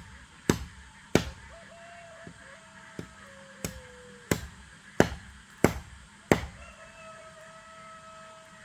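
Repeated chopping strikes of a blade into wood, about one every two thirds of a second, with a short pause about two seconds in and the strikes stopping about six and a half seconds in. Twice, a long drawn-out tone holds in the background, the first one sliding down in pitch at its end.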